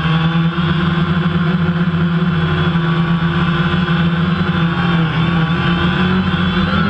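DJI Phantom quadcopter's four electric motors and propellers buzzing steadily at close range, heard from the GoPro mounted on the drone. The pitch shifts slightly near the end as the rotors change speed.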